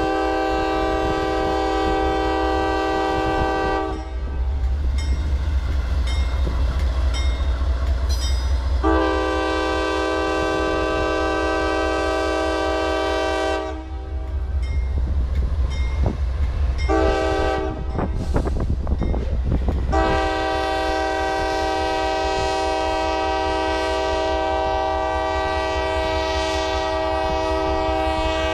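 Norfolk Southern diesel freight locomotive blowing its air horn in the grade-crossing pattern: long, long, short, long. The final long blast starts about two-thirds of the way in and is held. A steady low rumble of the engine and the passing freight cars runs underneath.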